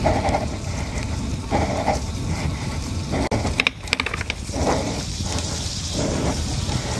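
DUOTTS C29 electric mountain bike ridden over a rough dirt track: steady wind and tyre rumble with small rattles from the mudguards. The rider puffs out a breath about every second and a half, and there is a short burst of clicks just under four seconds in.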